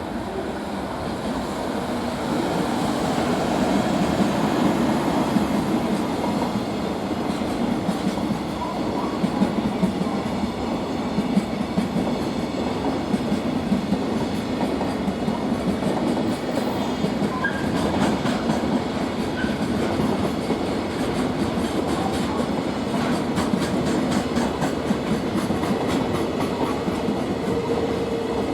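Freight train passing: a steady rumble of wagon wheels on the rails, with a run of clicking as the wheels cross rail joints.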